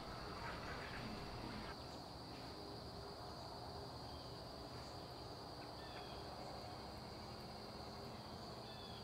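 Dusk ambience of crickets keeping up a steady high-pitched drone, with a few short, faint bird chirps in the second half. A low background of street noise drops away about two seconds in.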